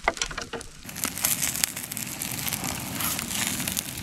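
Vegetables sizzling in a skillet over a crackling campfire, with a short clatter at the start. The sizzle grows denser about a second in, as the last ingredient, tomatoes, goes into the hot pan.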